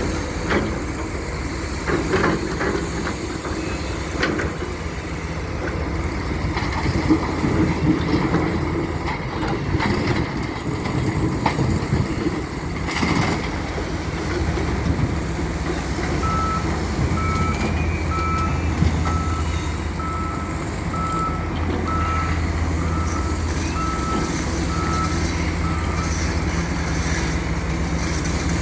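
Wheel loader's diesel engine running under load, with scattered knocks and clanks in the first half. A little past halfway a reversing alarm beeps about once a second, about ten times.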